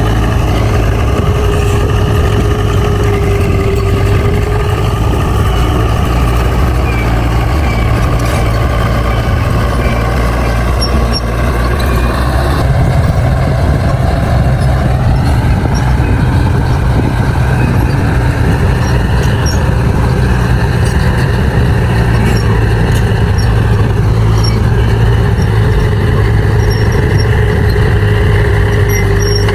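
Bulldozer's diesel engine running steadily under load. Its pitch sags between about 11 and 15 seconds in, and again around 24 seconds, then recovers.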